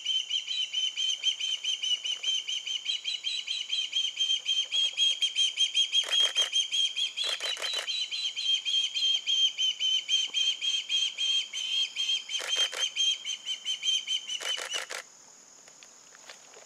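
Juvenile osprey calling: a long, rapid series of short, high whistled chirps, about three a second, with a few louder, harsher runs of notes. The calls stop abruptly about fifteen seconds in.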